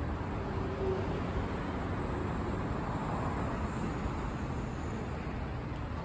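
Steady road traffic noise from cars passing on a city street.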